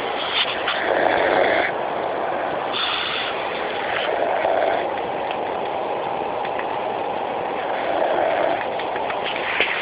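A sleeping dog snoring in slow, regular breaths, each snore swelling about every four seconds.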